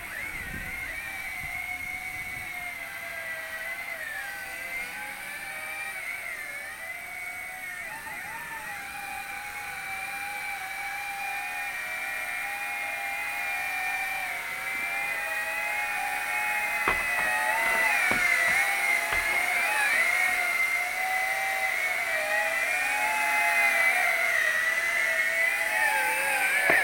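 Electric motors and propellers of a WLtoys Q202 foam RC amphibian plane whining in flight. The pitch wavers up and down with the throttle, and the sound grows louder in the second half.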